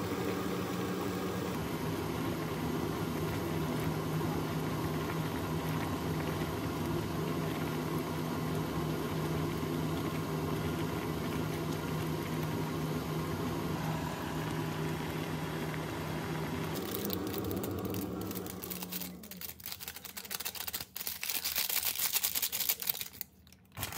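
A steady electric motor or fan hum with a low drone that dies away about three-quarters of the way through. Then come a few seconds of crackling hiss that cut off just before the end.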